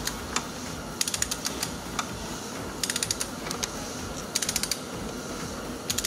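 Click-type torque wrench ratcheting as it tightens an oil filter cap: three short runs of rapid clicks about a second and a half apart, with a few single clicks between.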